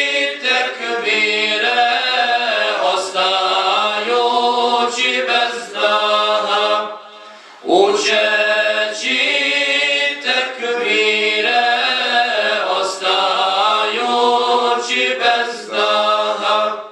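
Group of male voices singing a Bosnian ilahija a cappella, a melody over a held low note. It runs as two long phrases with a short pause about seven seconds in.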